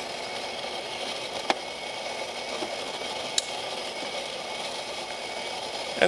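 Gaggia Velasca super-automatic espresso machines running mid-cycle with a steady mechanical whir, the grinder and brewing pump working through a second grind-and-extract for a double café crema. Two faint clicks come about a second and a half in and again near the middle.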